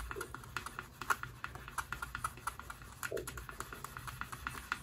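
A hand-held edge slicker rubbed along the dampened edge of elephant-skin leather, with a rapid, irregular run of small pops. The popping is the sign of the wet edge drying and slicking down as it burnishes.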